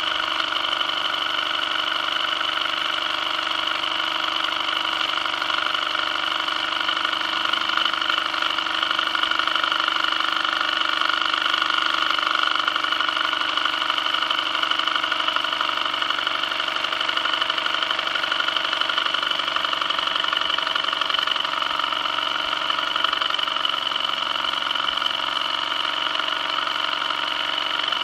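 Small toy steam engine with a brass boiler running fast and steadily under steam, its single cylinder and flywheel giving a continuous, even running sound with no change in speed.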